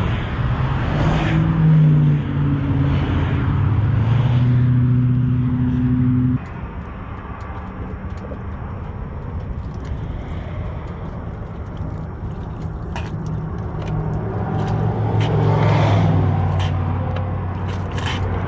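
Vehicles passing on the highway over a steady low engine hum, the noise swelling and fading as they go by. In the last few seconds a trigger spray bottle squirts several times.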